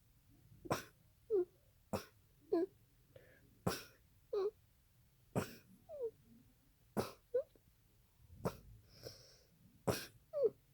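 A person with a bad cold coughing over and over: a dozen or so short, sharp coughs, often in pairs, many ending in a brief squeaky voiced note.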